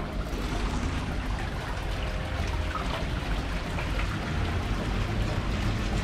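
Glacial meltwater pouring steadily down into a small moulin, a shaft in the glacier ice, with continuous splashing.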